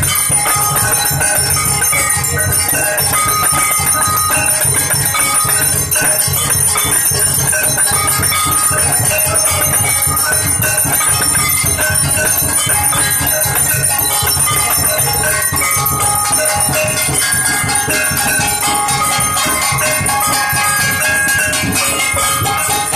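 Hindu temple aarti bells ringing without pause, a dense metallic clanging of several bells at different pitches struck rapidly together.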